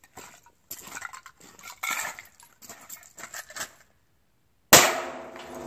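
Light clicks and rustling as a .22 rifle is picked up and readied, then a single loud .22 rifle shot near the end, followed by a ringing tail that fades.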